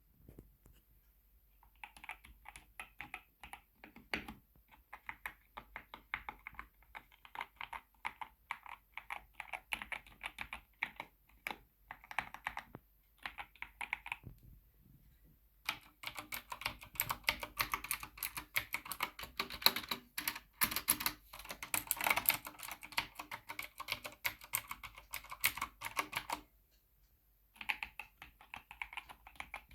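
Fast typing on mechanical keyboards: an Epomaker Shadow-X with linear Gateron Pro Yellow switches and an Asus keyboard with clicky Cherry MX Blue switches. The typing comes in runs of rapid key strikes. A louder, sharper-sounding stretch lasts from about a quarter of the way in until shortly before the end, and short pauses separate it from the softer typing on either side.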